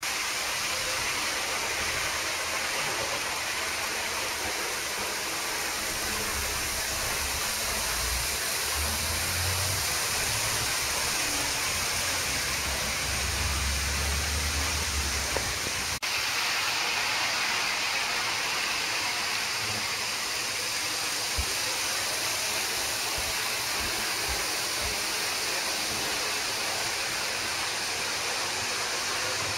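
Steady, even hiss with a low rumble for a few seconds, broken by a short dip about halfway where the recording cuts.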